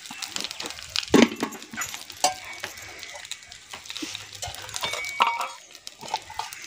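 Masala-coated seer fish frying in oil on an iron dosa griddle over curry leaves: a low sizzle broken by scattered sharp pops and crackles, the loudest about a second in and again about two seconds in.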